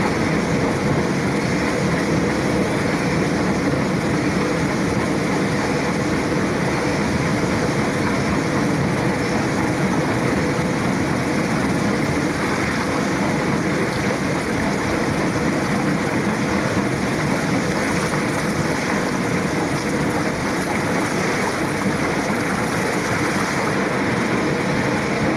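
Iron feathering paddle wheel with eccentric-driven paddle arms turning, driven by an electric motor: a steady mechanical running noise of its linkages and bearings, with no pauses or changes.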